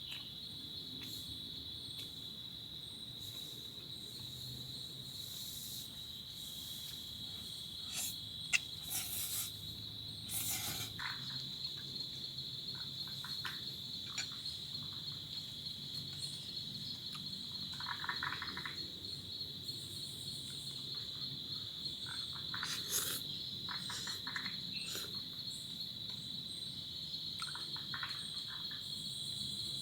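Steady, unbroken high-pitched chorus of crickets, with a few short frog croaks and clicks now and then.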